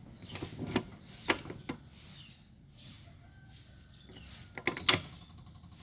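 A few sharp clicks and knocks in three clusters, the loudest near the end, over a low steady background hum.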